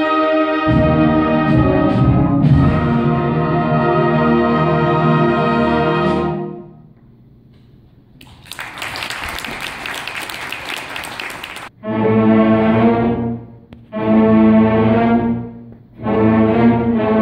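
Concert band of woodwinds and brass playing long sustained chords that fade away about six seconds in. After a brief soft moment comes about three seconds of rushing percussion noise, then the band plays three separate swelling held chords, each cut off with a short gap before the next.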